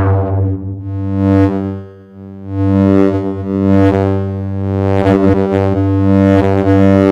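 Eurorack modular synthesizer drone from two oscillators, moved by a joystick: a low sustained pitch with a dense stack of overtones. Its tone brightens and dulls in repeated swells, and the volume dips briefly about two seconds in.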